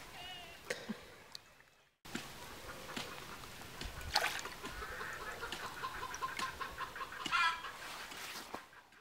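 Domestic chickens clucking in the background, with a few short calls spread through. The sound drops out briefly about two seconds in.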